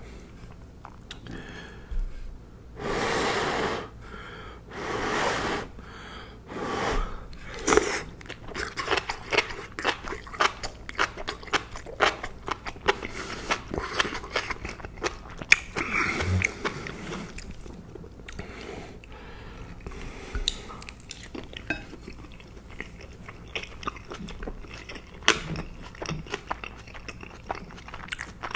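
Close-miked mouth sounds of eating: about three long breathy noises in the first seven seconds, then steady wet chewing with many small crackles and clicks of food being bitten and mashed.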